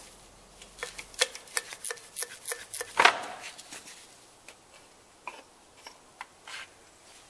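Clicks and light knocks of the distributor being worked loose and pulled out of a Jeep 4.0 straight-six engine block, plastic cap and metal housing clacking together. The clicks come quickly for the first three seconds, with the loudest knock about three seconds in, then thin out to scattered light taps.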